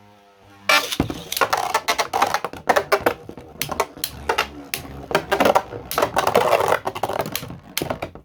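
3D-printed Beyblade spinning tops clattering and colliding in a plastic stadium: a rapid, uneven run of sharp plastic clicks and knocks, starting about a second in and cutting off abruptly at the end.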